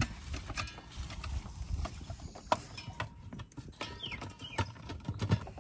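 Freshly lit charcoal fire burning in a clay stove, crackling with irregular sharp clicks and pops over a low rumble, the wind fanning it. A short chirp-like sound comes twice, about four seconds in.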